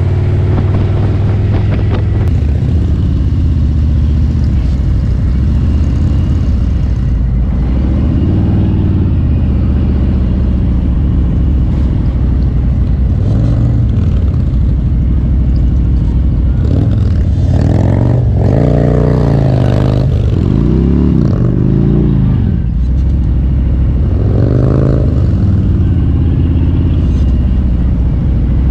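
Harley-Davidson Road King's V-twin engine running steadily while riding, its revs rising and falling several times as the throttle is worked, most often in the second half.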